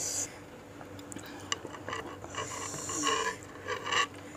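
Close-miked eating sounds: slurping and chewing a beef meatball in broth, with a few light utensil clicks. The slurping is heard from about halfway through to near the end.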